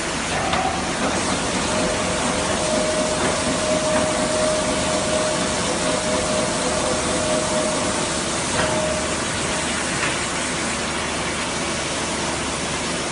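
TRUMPF TC 500 R CNC punching machine powered up and running without punching: a steady rushing hum, with a steady whine from about two seconds in to about nine seconds and a few light clicks.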